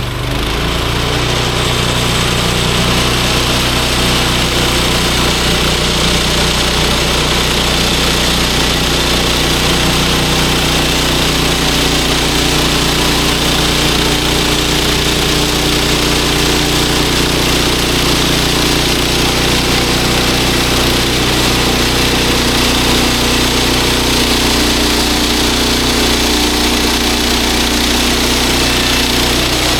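Small gas engine of a bandsaw sawmill running steadily at a constant speed.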